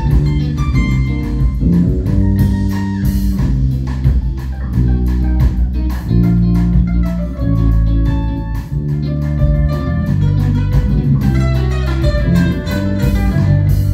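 Live band instrumental break: a bandolim (Brazilian mandolin) picks a melody of short notes over electric bass and drum kit.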